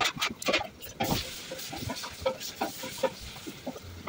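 Kitchen work sounds: irregular clicks, taps and knocks of utensils and containers being handled, a dense cluster in the first second or so, then sparser taps.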